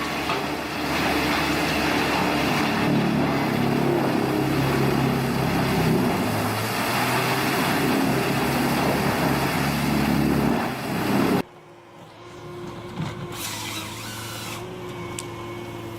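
Large diesel-powered horizontal wood grinder running loudly: a steady engine drone under a dense rushing, grinding noise. About eleven seconds in it cuts off abruptly to a quieter, steady machine hum.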